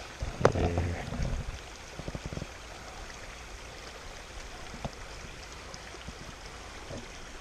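Small shallow mountain stream trickling over stones. A sharp click comes about half a second in, and a few short knocks follow in the first couple of seconds.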